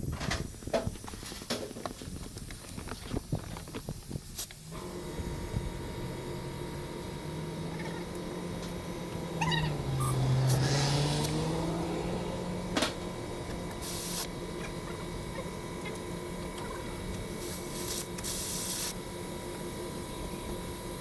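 Inflating a tractor's rear tyre fitted with a new inner tube. After some clicks and handling knocks, a machine's steady hum starts about five seconds in and runs on, dipping briefly in pitch and rising again about halfway through. Meanwhile the tyre fills and its bead seats against the rim.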